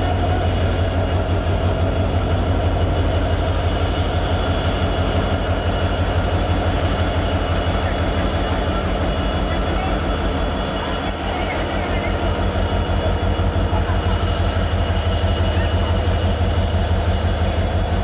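EMD diesel locomotive's two-stroke engine humming steadily and deeply as it pulls a passenger train slowly away, with a thin steady high whine above the hum.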